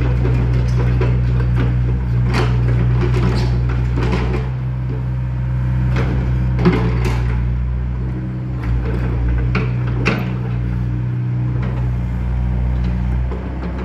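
Volvo EC55 mini excavator's diesel engine running steadily with a low hum while the machine travels on its steel tracks and swings round, with repeated irregular metal clanks and knocks from the tracks and undercarriage.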